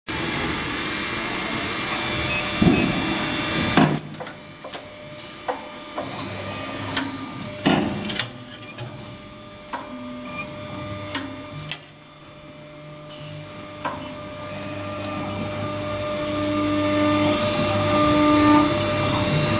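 Automatic lock-shell drilling machine running while drilling pin holes in brass lock cylinder shells. A steady machine hum is broken by a series of sharp clicks and knocks from the fixture and tooling, then the drill spindle's hum grows steadily louder over the last several seconds.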